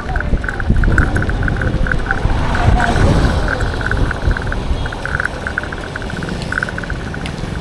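Road traffic heard from a bicycle: a motor vehicle passes close by about three seconds in, its sound swelling and then falling away, over a steady low rumble. A rapid, irregular high pulsing ticks throughout.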